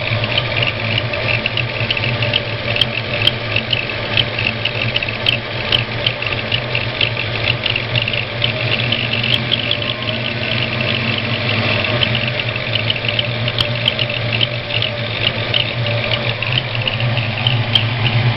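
Ford 302 V8 idling with a rapid, rhythmic high-pitched chirping squeak, several chirps a second, from the number one cylinder's valvetrain. The noise goes away with both rockers removed and returns with the exhaust rocker fitted, which the owner takes for a bad roller.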